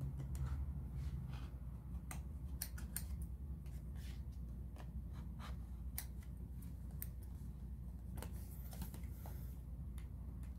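Scissors cutting the plastic wrap and seal of a boxed smartphone, with the cardboard box being handled: irregular small clicks, snips and taps over a low steady hum.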